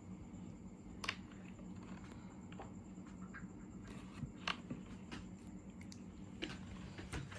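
Quiet room tone with a low steady hum and a few faint, scattered clicks and taps, about one a second.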